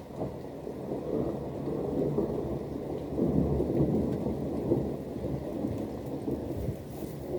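Rolling thunder rumbling low over steady rain, building through the first few seconds and loudest in the middle before easing slightly.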